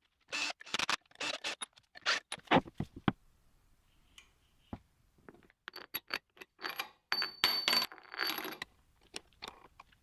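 Steel parts of a lathe turret toolhead clinking and scraping against each other as they are fitted together by hand. There are two flurries of sharp clicks and scrapes, and in the second a struck part rings briefly with a high tone.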